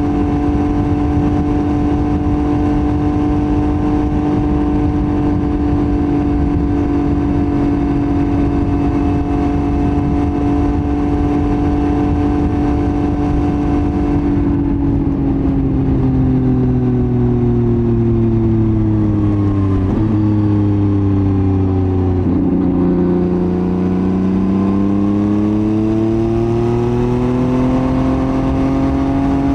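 Yamaha MT-09's CP3 three-cylinder engine through a Roadsitalia titanium full exhaust, holding steady revs for about fourteen seconds. The engine speed then falls for several seconds and climbs again near the end.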